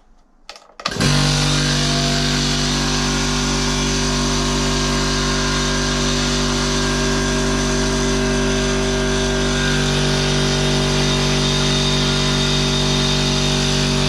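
Air compressor switched on: a click, then the motor and pump start up about a second in and run steadily and very noisily, with a regular pulsing beat underneath.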